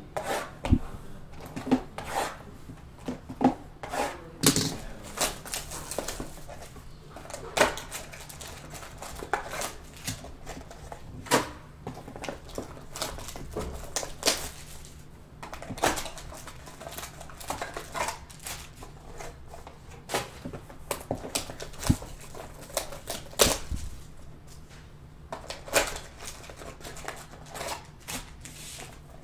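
Hands opening a box of trading-card packs and handling the packs inside: irregular rustling and crinkling of wrappers, with light taps and knocks of cardboard and packs on a table.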